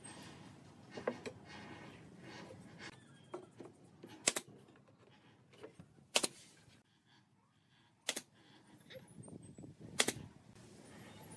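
Pneumatic brad nailer firing four times, about two seconds apart, shooting nails into pine panels and strips. Lighter knocks of wood being handled and positioned come before the first shot.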